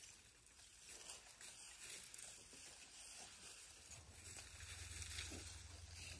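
Near silence: faint outdoor ambience with light rustling, and a low rumble that comes up about four seconds in.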